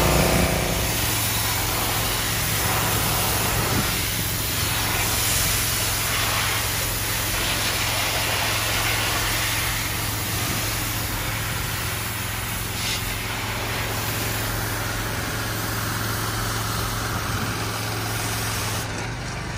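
Pressure washer running: a steady small-engine hum under the hiss of the water jet spraying the aluminum pigeon crates.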